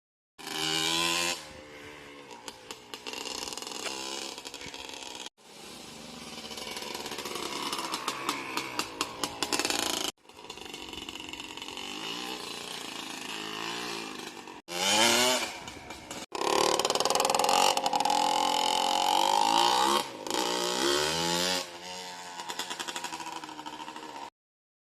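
Yamaha Blaster's two-stroke single-cylinder engine running and revving, its pitch rising and falling, in several short stretches broken by abrupt cuts.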